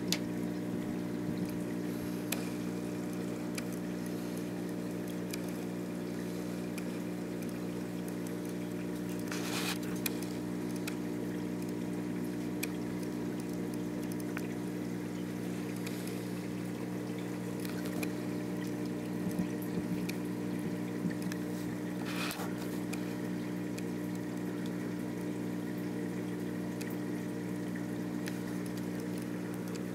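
Aquarium pump's steady hum of several even tones, with water trickling under it. Twice a brief burst of noise rises over it, about a third and about three quarters of the way through.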